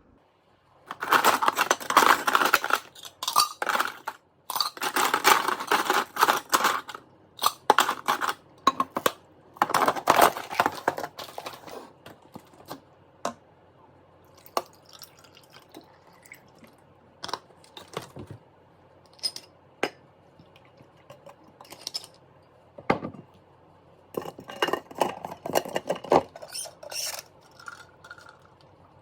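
Dishes and utensils clattering: a few louder stretches of scraping and clinking in the first half, then scattered single clicks and knocks.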